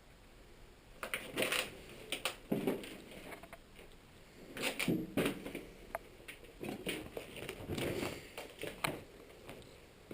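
Irregular crunching footsteps and scuffs over a debris-strewn floor, in about six uneven clusters.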